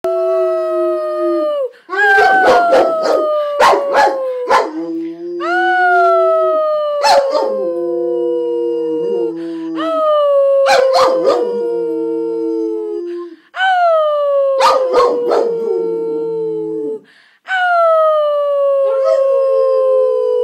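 Rottweiler howling: a run of long howls about four seconds apart, each one starting high and sliding down in pitch.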